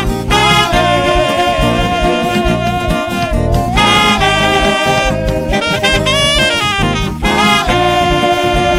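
Instrumental music: a held lead melody that wavers and glides in pitch, with a brief pause between phrases just before the middle and again about seven seconds in, over a steady bass and drum backing.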